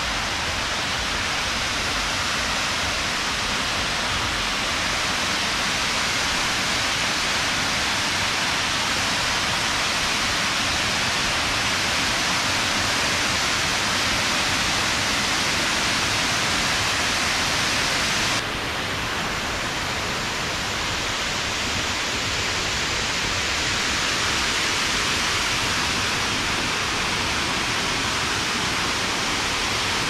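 Waterfall of about 75 metres: a loud, steady rush of falling water. About 18 seconds in, the rush turns suddenly a little duller and quieter.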